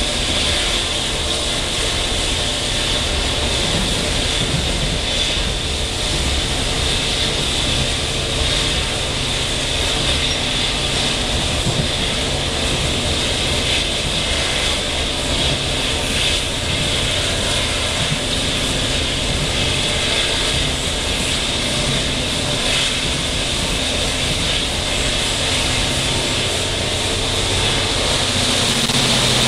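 Steady running noise heard inside a Taiwan Railway non-air-conditioned ordinary-train coach (SPK32700 type) in motion: wheels rumbling on the rails and air rushing past the car, getting a little louder right at the end.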